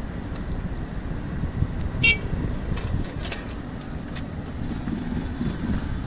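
Steady low outdoor rumble of the railway yard, with a short high-pitched toot about two seconds in.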